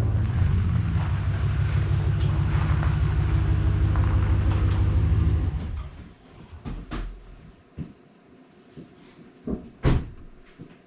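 Kubota tractor engine running steadily, then shut off about halfway through. A few scattered knocks and clanks follow, the sharpest one near the end.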